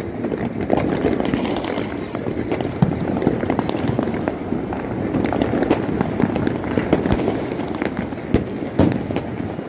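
Fireworks and firecrackers going off across a city: a steady mix of distant bangs and crackling, with many sharp pops.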